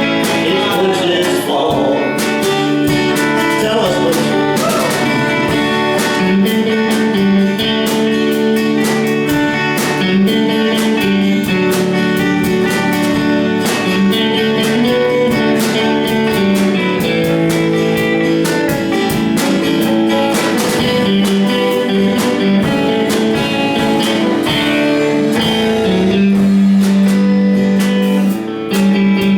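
A live band playing a song, led by strummed guitar with sustained chords and a steady rhythm.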